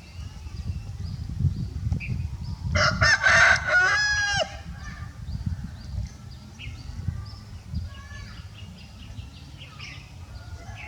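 A loud animal call about three seconds in, lasting about a second and a half, with a rough start and then a held pitched tone that drops at the end. Faint short chirps repeat around it.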